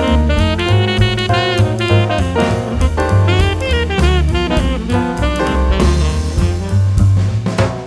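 Background music: an upbeat jazz tune with saxophone, bass and drum kit.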